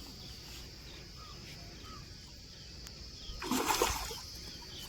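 A short splash of water about three and a half seconds in, the loudest sound, over small birds chirping and a steady high insect drone.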